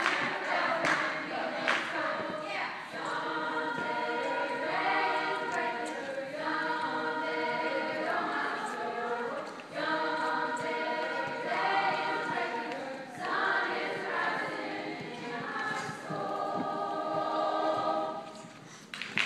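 Large high-school choir singing sustained chords in a gymnasium, in phrases of a few seconds each. The song ends near the end and applause breaks out.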